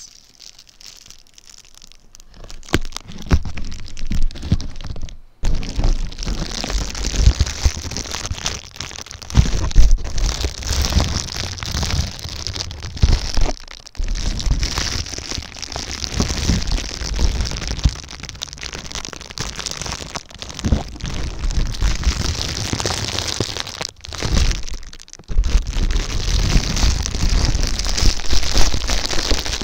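Makeup brush bristles sweeping directly over the microphone, giving a close, dense scratchy rustle with soft low thuds. It starts a couple of seconds in and stops briefly three times.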